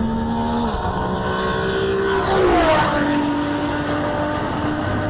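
Ferrari 599 GTO's 6-litre V12 running hard at speed. Its pitch drops sharply about halfway through, at the loudest point, as the car passes close by, then holds steady at the lower pitch as it moves away.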